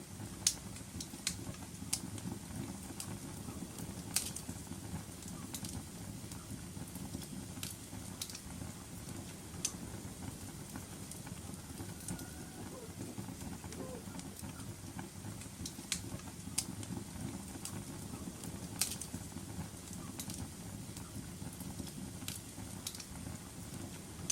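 Wood fire crackling in a fireplace: sharp, irregular pops and snaps over a steady low rumble of the flames.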